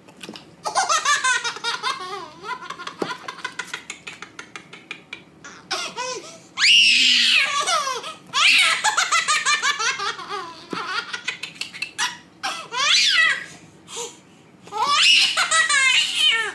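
A baby laughing hard: repeated fits of high-pitched belly laughs and giggles, with short pauses between them.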